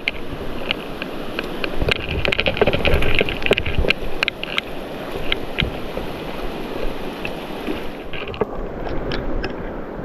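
Mountain stream water rushing steadily, with many sharp splashes and drips scattered through it, thickest about two to four seconds in.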